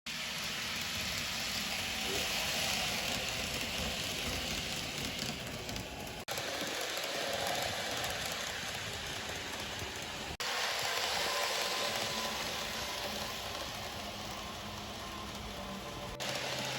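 N-gauge model trains running on a layout: a steady rumble and hiss of small wheels on track, cut off suddenly and picked up again about six and ten seconds in.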